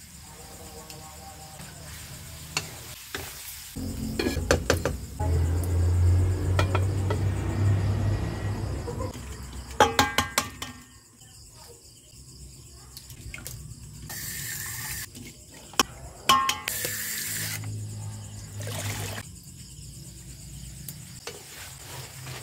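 Kitchen cooking sounds: chicken frying in a wok over a wood fire, and boiled eggs being cracked and peeled in a metal basin of water, with sharp clicks of shell around ten and sixteen seconds in and brief splashes of water.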